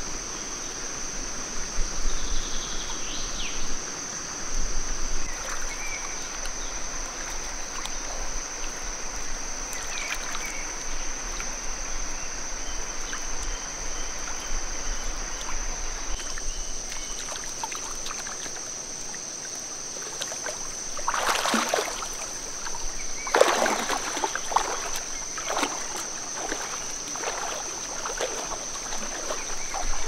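Steady high-pitched chorus of cicadas, with river water splashing in bursts from about two thirds of the way through as a person washes and wades in the shallows.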